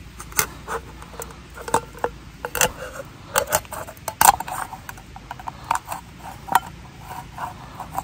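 Knife blade prying and scraping at the lid of a small metal gel-fuel tin from a Swiss army stove: irregular metallic clicks, taps and scrapes, some with a slight ring.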